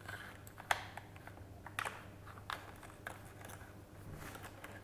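Faint, scattered light clicks and taps of electrical wiring being fed down through an ATV's frame, over a steady low hum.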